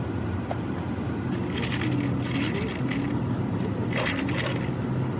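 A car driving slowly, heard from inside the cabin as a steady low engine hum and road noise. Crackling scrapes come about a second and a half in and again around four seconds.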